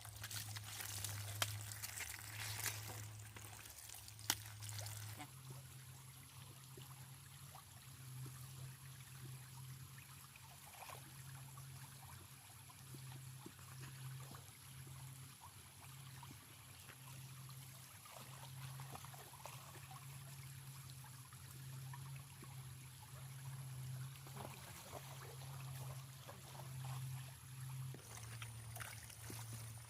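Faint, steady trickle of water from a small stream, with two sharp clicks in the first few seconds.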